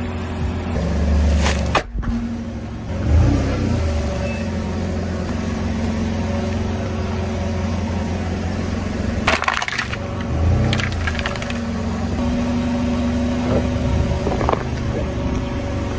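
Car engine running at a slow, steady idle, with a few sharp cracks and crunches as objects break under the car, one about two seconds in and a cluster near the middle.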